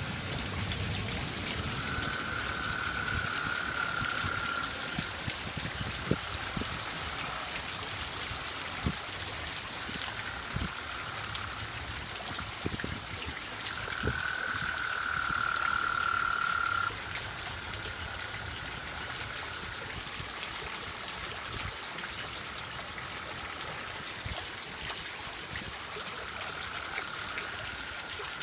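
Heavy, steady rain falling, with toads giving long, steady trills of a few seconds each, one after another; the loudest trill comes about halfway through. Scattered heavier drips land close by.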